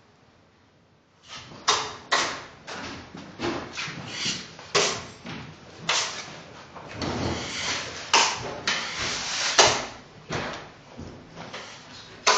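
Steel drywall taping knife scraping joint compound against a mud pan and the wall: an irregular run of short metal scrapes and clacks, starting about a second in.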